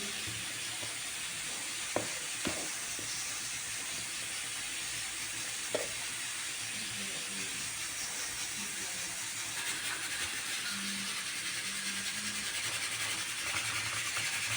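Food frying in hot oil, a steady sizzle with a few light clicks of a utensil against the pan.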